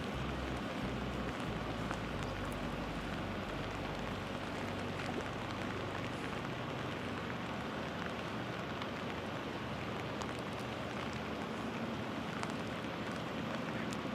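Steady rain falling, an even hiss with faint scattered drop ticks. A low rumble underneath dies away about four seconds in.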